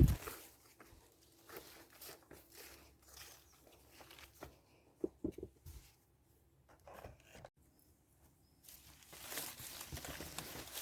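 Quince tree leaves and twigs rustling and snapping as fruit is picked by hand, in scattered short crackles. There is one heavy thump at the start, a brief lull in the middle, and denser rustling near the end.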